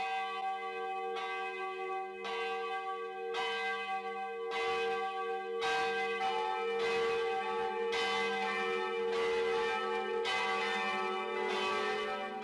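A church bell tolling in slow, even strikes, about one a second, each strike ringing on into the next.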